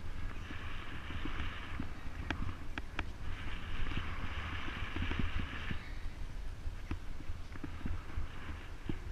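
A bicycle rolls along a tarmac path with wind rumbling steadily on the microphone. Scattered light ticks run through it, and a higher hiss comes and goes in three stretches.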